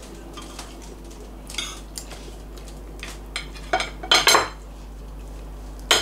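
Metal spoons and forks clinking and scraping on ceramic dinner plates as two people eat, in a handful of short clinks. The loudest cluster comes about four seconds in.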